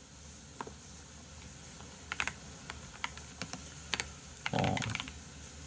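Computer keyboard keys clicking as someone types a few scattered keystrokes, with a brief low hum about four and a half seconds in.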